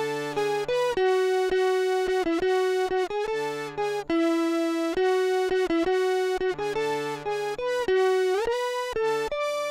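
Two electric guitars played through the Roland GR-300 guitar synthesizer in a duet: a melody of held, evenly sustained notes with a slide up about 8 seconds in, over a quieter lower part that comes and goes.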